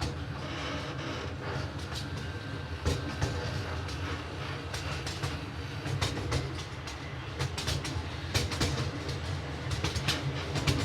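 Miniature railroad train running along its track, heard from on board: a steady low rumble with irregular clicks and clacks of the wheels over the rail joints.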